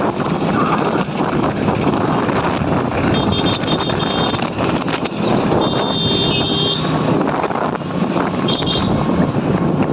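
Auto-rickshaw riding through town traffic: a steady mix of engine and road noise, heard from on board. A few short high-pitched tones sound about three, five and eight and a half seconds in.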